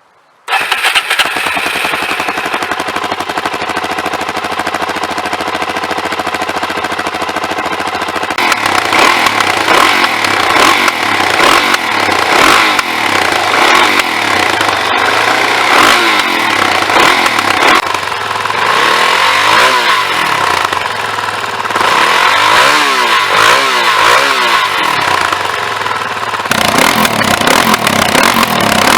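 Suzuki DRZ400's single-cylinder four-stroke engine running through a DEP aftermarket silencer on the stock downpipe. It comes in suddenly about half a second in and grows louder after about eight seconds, with the pitch rising and falling several times later on as it is revved. The exhaust sounds close to stock.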